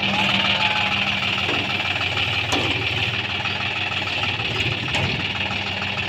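John Deere tractor's diesel engine running steadily at idle while it holds a loader bucket up, with two sharp clicks partway through.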